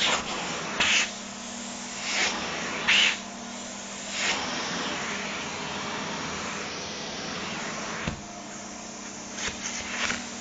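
Vacuum cleaner running steadily with a low hum while its nozzle passes over a nylon down jacket, with brief louder rushes of air as the fabric is sucked against it, several in the first few seconds and a few more near the end.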